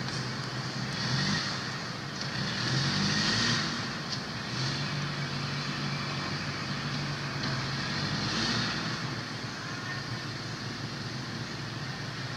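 Steady engine noise of a motor vehicle running nearby, its pitch drifting up and down a little, with a hiss in the high range that swells and fades.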